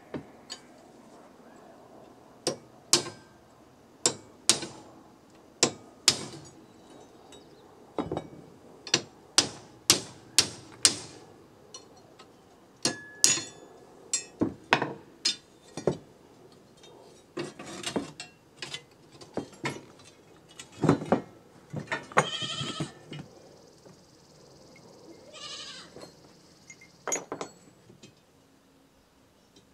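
Hammer blows on a steel punch and cold chisel driven against an old carriage leaf spring: sharp metallic strikes, often in quick pairs or runs of three, irregularly spaced, as the spring's leaves are knocked apart. Later come two short, wavering, higher-pitched sounds, and the strikes thin out near the end.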